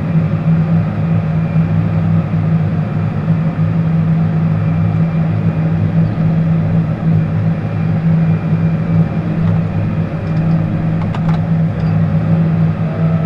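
John Deere tractor's diesel engine running steadily while plowing snow, heard from inside the cab as a loud, even low drone.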